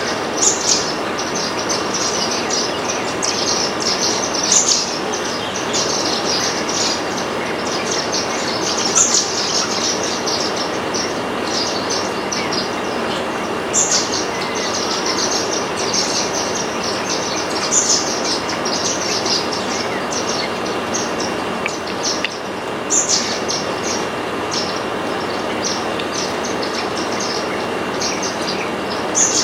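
A flock of Indian silverbills (white-throated munias) twittering at a feeder, with short, high chirps every second or so over a steady background hiss.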